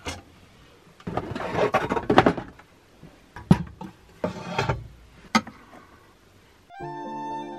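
Kitchen handling sounds: a cupboard latch clicks open, then things are moved about with scraping, knocking and a few sharp clicks. Soft background music comes in near the end.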